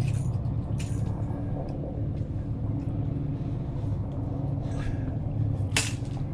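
A steady low mechanical hum, with a few short clicks and knocks, the sharpest near the end.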